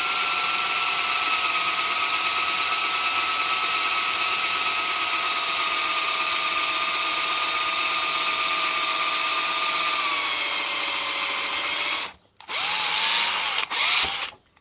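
Electric drill running under load with a steady motor whine that slowly drops in pitch as a blunt bit bores into a pin-chamber plug of a 245 series lock. It stops about twelve seconds in, then runs in two short bursts before stopping.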